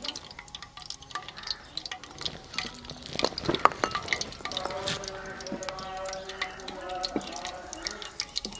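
Cumin and carom seeds crackling and spitting in hot mustard oil in an aluminium karahi, as a quick run of irregular sharp pops that is densest in the middle, with a wooden spatula stirring.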